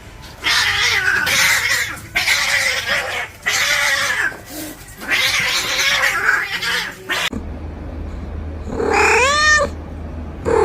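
Two cats caterwauling: four long, harsh yowls in the first seven seconds, then a clear meow that rises and falls in pitch near the end.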